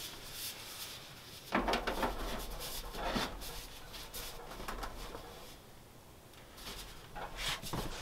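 Black sheet-metal stove pipe sections being handled and fitted together: a few knocks and scrapes of the pipe, about one and a half and three seconds in and again near the end.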